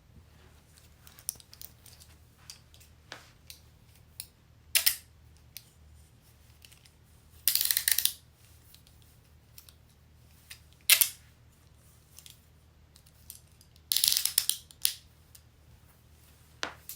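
Metal handcuffs being worked: a few sharp single clicks and two longer ratcheting runs, about seven and a half seconds in and again about fourteen seconds in, as a cuff's toothed arm ratchets through its lock.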